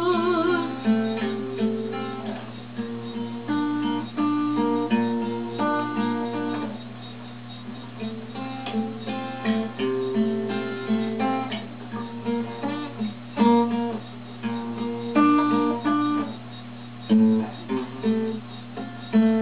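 Acoustic guitar playing a solo passage of strummed and picked chords, with no voice.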